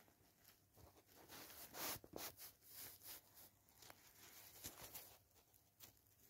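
Faint rustling and scattered light clicks of handling, a little louder about two seconds in.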